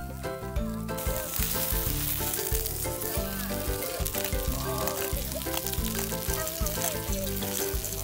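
Whole sillago frying in oil on a griddle pan with minced garlic: a steady sizzle that grows much louder about a second in. Background music plays underneath.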